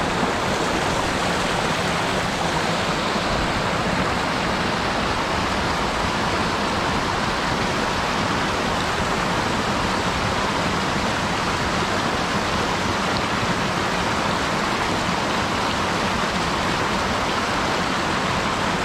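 Steady rush of a small mountain stream, with water spilling over a low weir.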